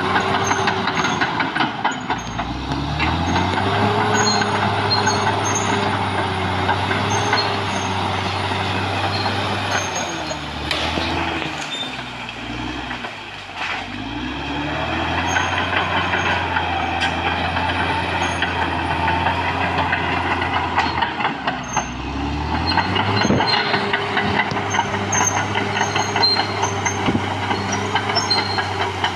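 Caterpillar D6R XL bulldozer's diesel engine working as the dozer pushes into trees and brush, its pitch sagging and climbing back three times as the load comes on and eases.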